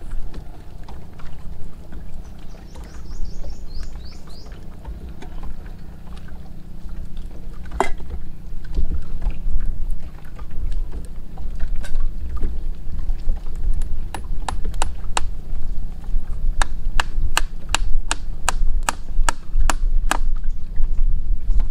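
Steady low rumble of wind and water lapping around a small wooden boat, with a small wood fire crackling; the sharp snaps come thick and fast in the second half.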